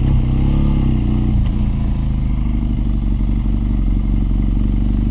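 BMW R nineT's 1170 cc boxer twin running under way. Its pitch rises and falls over the first second and a half, then holds steady.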